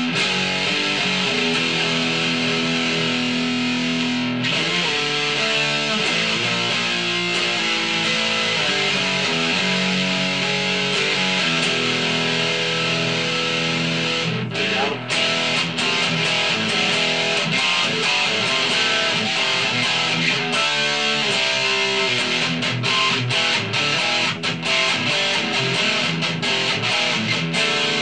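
Ibanez S470 electric guitar fitted with DiMarzio Gravity Storm pickups, played as a pickup sound test. It starts with held chords and notes, then turns choppier with short breaks between phrases from about halfway on.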